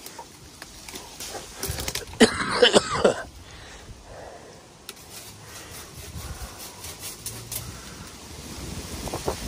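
A short bout of coughing about two seconds in, with rustling of leaves and branches being pushed through around it.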